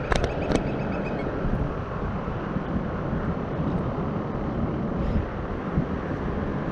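Steady wind rumble buffeting the action camera's microphone outdoors, with a few sharp clicks in the first second.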